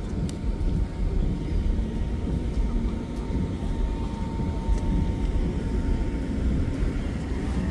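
Steady low rumble of city street traffic, with a faint steady whine held throughout.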